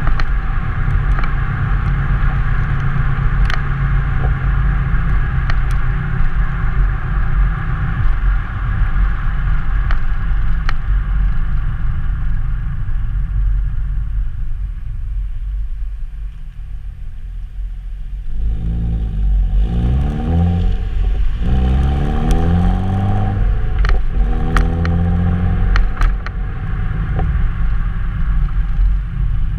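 2002 Nissan Maxima's 3.5-litre V6 exhaust droning steadily while cruising. It eases off, then accelerates hard from about two-thirds of the way in, rising in pitch in three or four sweeps broken by gear shifts.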